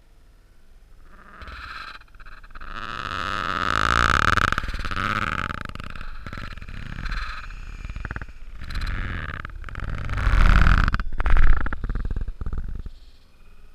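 A puppy's strange vocal noise played back slowed down, so it sounds deep and distorted. It is drawn out over about eleven seconds, swelling and fading several times with a held tone through it, and is loudest near the end.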